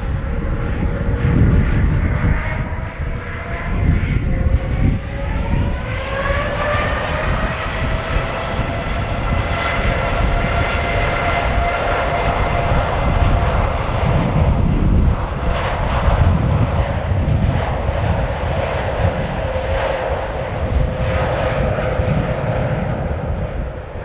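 Boeing 787's Rolls-Royce Trent 1000 turbofans spooling up to takeoff power for the takeoff roll. Their whine rises in pitch a few seconds in, then holds steady over a deep rumble.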